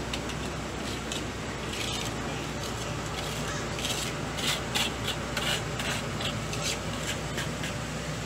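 Straw broom sweeping a concrete sidewalk: irregular brushing and scraping strokes, busiest in the middle, over a steady low hum.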